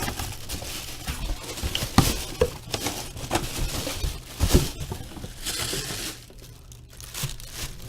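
Plastic wrapping crinkling and rustling around a full-size replica football helmet as it is pulled out of its box, with a few sharp knocks in between.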